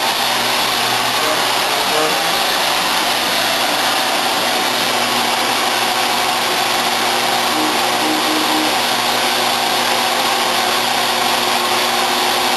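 A power machine's motor running steadily, a constant whine and hiss without a break while it flattens parts in the workshop.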